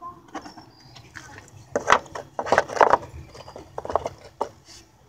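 Irregular metallic clinks and knocks of hand tools working a headlight mounting bolt loose, in several quick clusters.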